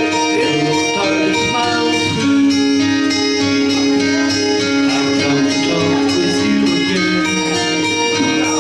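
Live music: a plucked guitar playing an instrumental introduction, with long held notes sounding underneath.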